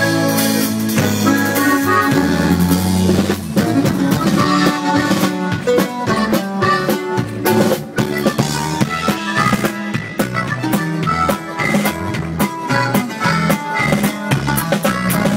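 Live band playing an instrumental passage: a steady drum-kit beat with rimshots under a tuba bass line and melody instruments.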